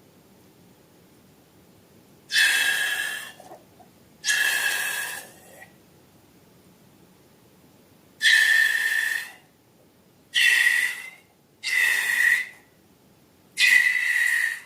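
Air hissing out in six short bursts of about a second each, every burst carrying a steady, high whistling tone.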